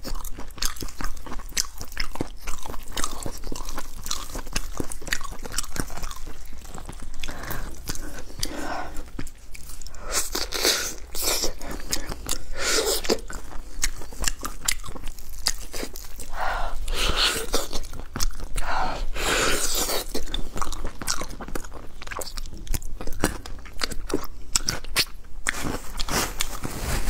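Close-miked chewing and biting of braised pork trotter, along with the meat being pulled apart by gloved hands. The sound is made of many short clicks throughout, with several louder stretches midway.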